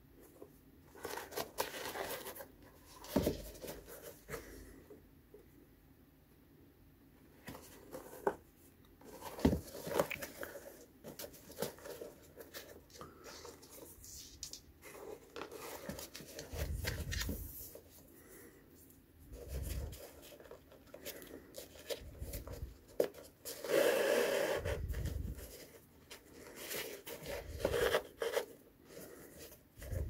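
Flat shoelaces rubbing and sliding through the eyelets and over the leather upper of an Air Jordan 1 Low as hands thread and pull them tight. Irregular rustling and small clicks, with a few dull bumps as the shoe is handled; the loudest rustle comes a little after the middle.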